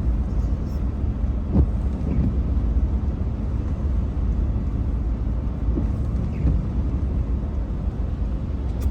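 Steady low rumble of a car driving, heard from inside the cabin, with a faint knock about a second and a half in.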